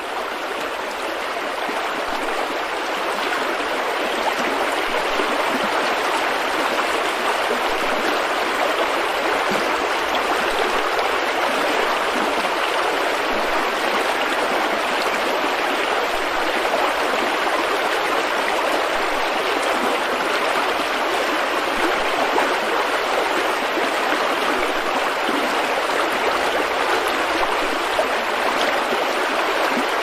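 Small stream pouring over rocks in a little cascade: a steady rush of splashing water.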